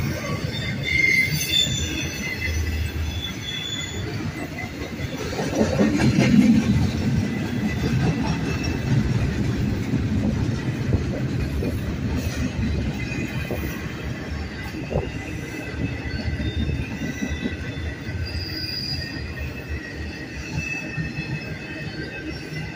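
Union Pacific double-stack container train rolling past: a steady rumble of wheels on rail, with thin high-pitched wheel squeals coming and going. It is loudest about six seconds in.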